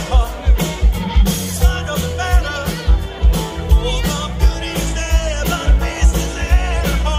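Live rock band playing a song with a male lead singer, drums keeping a steady beat of about two hits a second.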